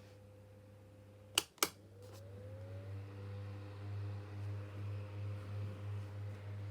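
Two sharp clicks about a second and a half in, then a small desk fan motor with worn bearings starts, its pitch rising as it spins up, and settles into a hum that wavers regularly in level.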